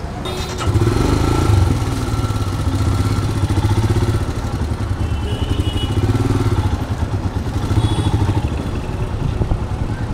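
Motorcycle engine starting about half a second in, then running with a steady low pulse as the bike pulls away into traffic.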